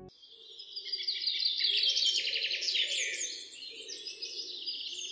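Birdsong ambience: many small birds chirping and twittering in quick, overlapping calls, swelling about a second in and easing off after about three seconds.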